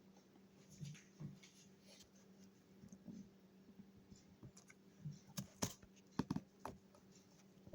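Faint scattered clicks and taps of the impact wrench's box being handled, several in quick succession about five to seven seconds in, over a faint steady low hum.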